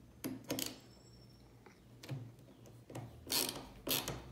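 Hand screwdriver turning a small screw tight in a metal bracket: a few short scraping sounds, the two loudest near the end.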